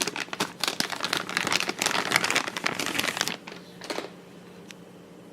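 Plastic packaging crinkling and rustling as an accessory cable is unwrapped by hand. The crinkling is dense for about three seconds, then stops, with a last brief rustle about four seconds in.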